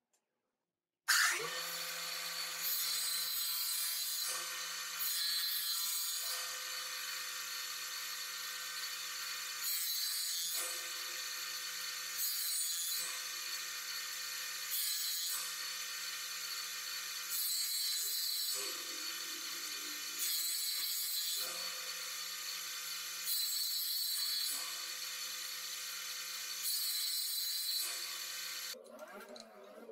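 Jointer running steadily, with a louder burst of cutting noise every two to three seconds as wooden strips are passed over the cutterhead. It starts abruptly about a second in and stops shortly before the end.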